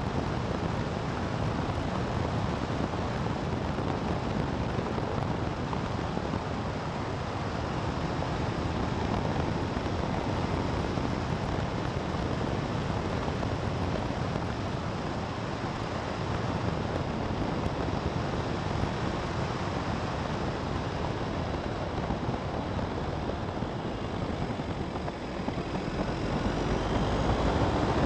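A vehicle driving along a winding road, heard as steady road and wind noise without clear engine tones. The noise grows louder near the end.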